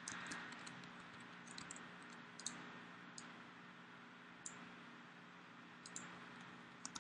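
Faint computer mouse clicks, a few scattered and irregular, over a low steady hum.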